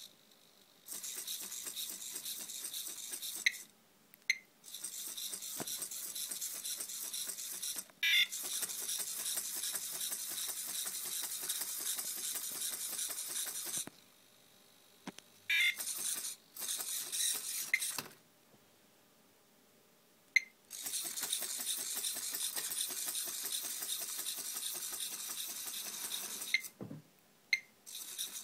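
Small hobby servos of a homemade hexapod walking robot whirring and rattling as its legs step. The walking stops and starts about five times, with short sharp chirps or clicks where it stops and starts.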